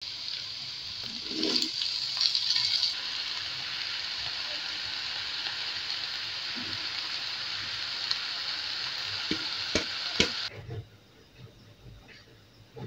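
Onion, chili, cabbage and meatballs sizzling as they stir-fry in a hot wok, louder for about a second and a half just after the start, with a few knocks of the spatula against the wok near the end. The sizzle cuts off suddenly after about ten and a half seconds, leaving only faint sounds.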